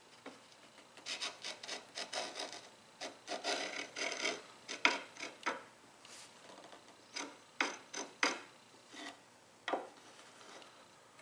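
Marking gauge drawn along the edge of a wooden chair part, scratching as it scribes: a run of short scraping strokes close together for the first few seconds, then a handful of separate strokes.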